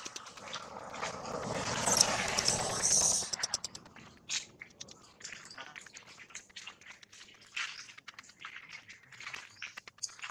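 Rustling and crunching over dry leaves and dirt, heaviest for the first three seconds or so, then thinning to scattered light clicks and rustles.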